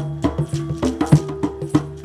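Live percussion music: a quick rhythm of sharp strikes, about five a second, on tuned percussion whose notes ring briefly at several low pitches.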